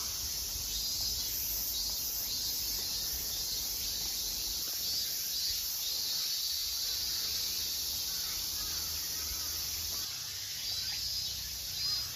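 A steady, high-pitched drone of insects in the surrounding trees, with a few faint bird calls in the second half and a low rumble underneath.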